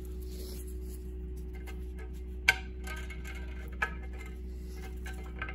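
Two sharp clicks of small metal parts, a little over a second apart, with a fainter one near the end, as the oiled relief-valve plug bolt and washer are handled against the oil pump cover. Under them runs a steady low hum.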